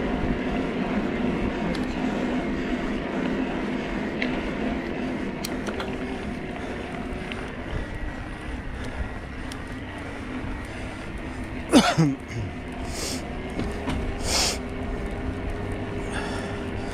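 Riding noise of a Specialized Turbo Levo electric mountain bike: a steady hum from its mid-drive motor over the rumble of tyres rolling on a ribbed path. About twelve seconds in, a loud squeal falls quickly in pitch, followed by two short hisses.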